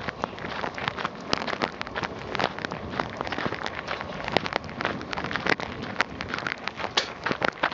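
A runner's footsteps crunching on a gravel trail, heard close up as a quick, irregular run of crunches and clicks.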